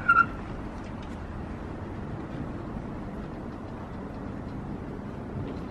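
Steady low rumble of distant vehicle noise by a railway line, with one short high chirp right at the start.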